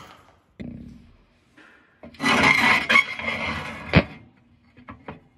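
Steel canopy plate of an old ceiling light fixture being worked loose by hand: a harsh scrape of about two seconds, ending in a sharp knock, then a few light ticks.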